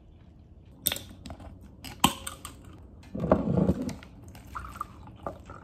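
Tabletop handling of an aluminium soda can and a drinking glass: a few sharp clicks and knocks about one and two seconds in, then a louder rustling clunk a little after three seconds, and smaller knocks near the end.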